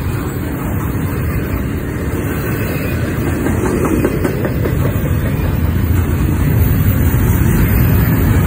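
Double-stack container train's well cars rolling past: a steady rumble with the clickety-clack of steel wheels on the rails, growing a little louder toward the end.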